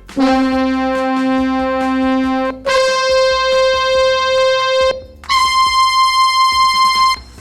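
Roland D-50 'Powerful Brass' synth-brass patch, sampled and played on a Korg keyboard: three long held notes, each an octave higher than the one before, with a bright, brassy tone.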